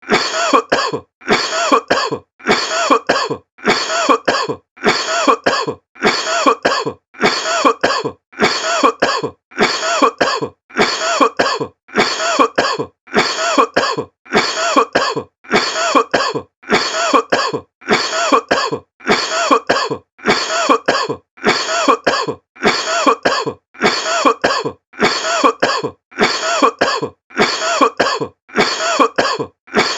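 A person coughing in pairs, a longer cough followed at once by a short one, repeated identically about every 1.2 seconds as a steady loop.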